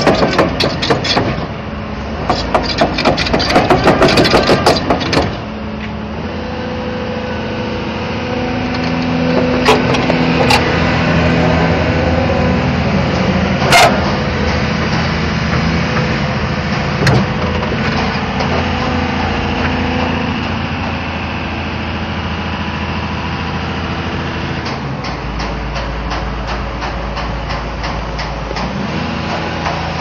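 Hyundai Robex 300LC excavator's steel crawler track clattering rapidly as it turns, for about the first five seconds, then the excavator's diesel engine running steadily, with a few sharp clicks.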